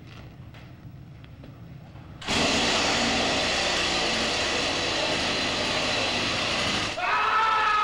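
A chainsaw bursts into loud running about two seconds in and keeps going steadily. Near the end a person gives a long scream that falls in pitch.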